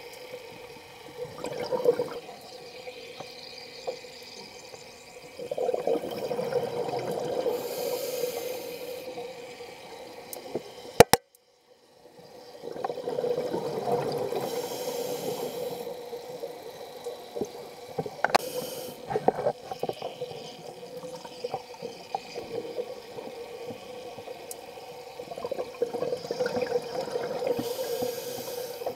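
Scuba diver's regulator breathing heard underwater: exhaled bubbles burbling out in bursts of several seconds, between quieter breaths. A sharp click about eleven seconds in, followed by a moment of silence.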